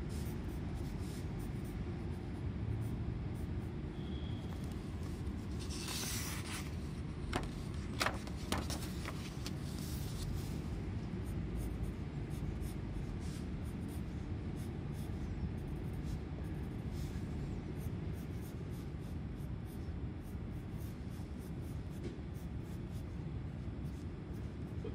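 Graphite pencil scratching on sketchbook paper in many short, irregular strokes, over a steady low rumble. A few sharper ticks come about seven to eight seconds in.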